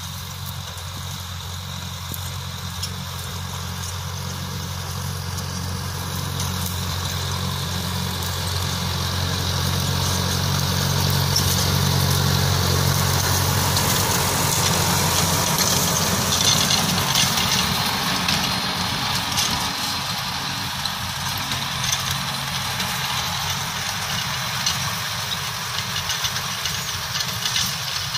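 Kubota MU5501 tractor's four-cylinder diesel engine running under load, driving a rotary tiller that churns the soil. It grows louder as the tractor passes close about halfway through, then fades somewhat as it moves away.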